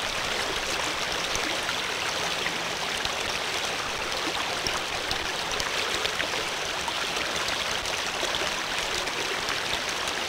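A running stream: a steady, even rush of water.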